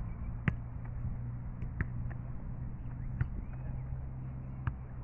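Football slapping into a goalkeeper's hands, four sharp smacks about a second and a half apart, the first the loudest, over a steady low rumble.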